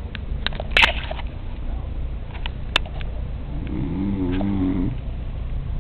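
A man snoring: one long, wavering snore about three and a half seconds in, after a few sharp clicks, over a steady low rumble.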